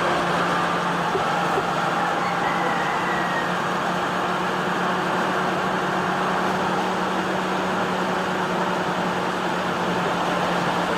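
Steady motor-vehicle noise with a constant low hum.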